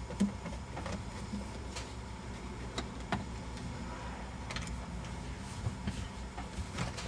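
Phillips screwdriver working the screws out of the shift boot trim in a car's centre console: scattered light clicks and taps, about one a second, over a steady low hum.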